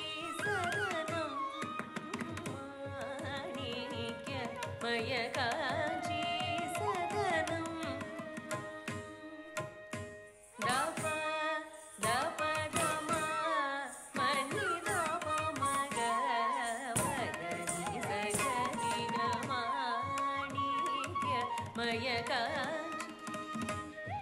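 Carnatic music for Bharatanatyam: a voice sings ornamented melodic lines that glide between notes, over the sharp strokes of a hand drum.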